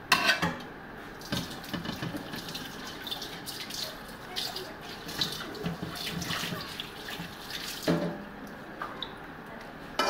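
Water running from a kitchen tap and splashing into a metal basin as fish is rinsed, with short clinks and knocks of the basin and bowls.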